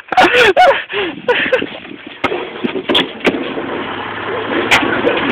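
Short cries and voices with sharp knocks of handling, then a vehicle engine running steadily.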